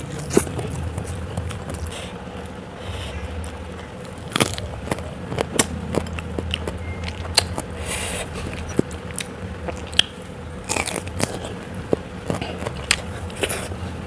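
Close-miked eating: a person chewing and biting crunchy food, with many sharp mouth clicks and crackles scattered irregularly.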